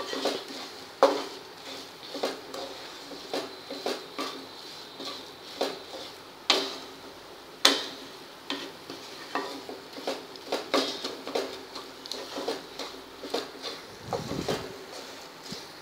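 Spatula stirring and scraping a thick coconut-and-jaggery filling around a nonstick pan, with irregular scrapes and knocks against the pan, a few of them sharper.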